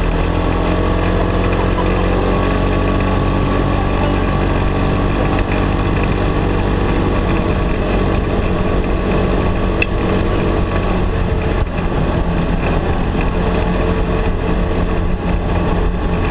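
Polaris RZR side-by-side engine running steadily as it drives along, heard from inside the open cab with road and wind noise.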